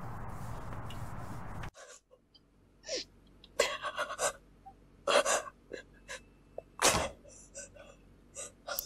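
Steady background hiss that cuts off abruptly just under two seconds in, then a woman's sharp gasping breaths and sobs, several in a row.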